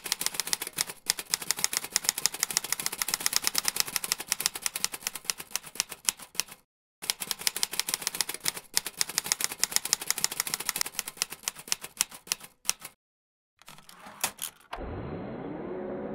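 Typewriter keys clacking in rapid, steady strokes, with two short pauses. Soft ambient music comes in near the end.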